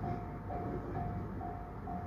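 Level crossing warning bell ringing with a steady single-tone chime about twice a second. Under it is the rumble of a Tobu 10030 series electric train passing over the crossing.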